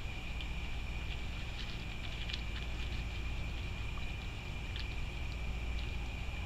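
Raccoon foraging in scattered birdseed: scattered faint clicks and ticks of seeds being picked over and chewed, over a steady low hum and a thin, steady high whine.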